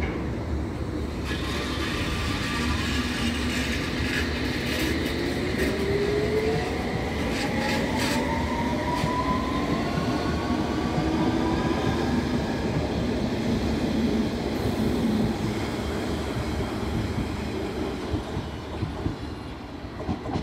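District Line S7 Stock Underground train pulling away from the platform. Its traction motors give a whine that climbs steadily in pitch as it accelerates, and the wheels click over rail joints. The sound fades as the train leaves.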